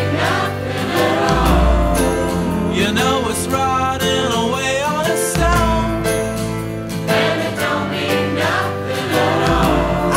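Background music: a song with a singing voice over held bass notes and a steady beat.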